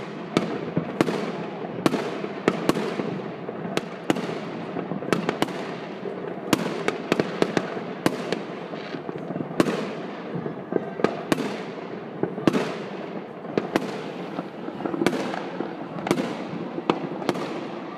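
New Year's Eve fireworks going off without pause: irregular sharp bangs, about one or two a second, each trailing off in an echo, over a continuous din of further fireworks.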